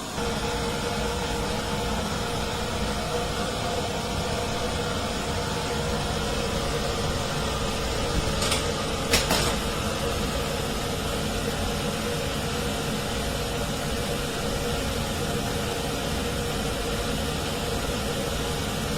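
Inline duct fan running steadily: a rushing of air with a steady hum, and a couple of brief clicks about eight and nine seconds in.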